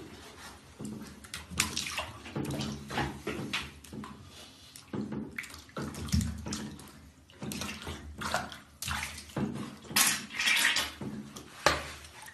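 Shallow bathwater in a bathtub splashing and sloshing in irregular bursts as a beagle puppy is washed by hand and steps about in it.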